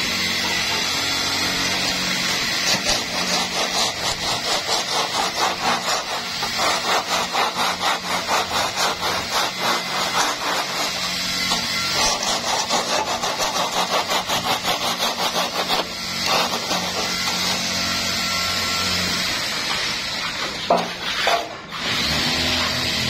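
Hand trowel scraping and smoothing wet concrete in quick, even strokes, about four to five a second, becoming sparser and irregular about two-thirds of the way in, over a steady low hum.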